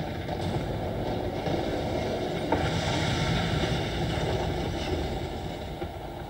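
Low, steady rumbling soundtrack of an outdoor video-mapping projection show played over loudspeakers, with a hissing swell about three seconds in.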